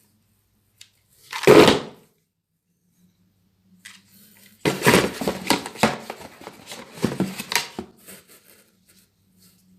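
Handling noise of a replica pistol and its packaging: one loud rustling knock about a second and a half in, then several seconds of quick clicks, clacks and rattles.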